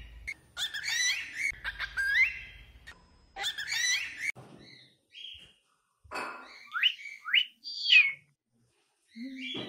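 Cockatiels mimicking speech in high, squeaky chirping voices, captioned "oi, mamãe", repeated several times, then a few sharply rising whistles near the end, captioned "oi, bom dia".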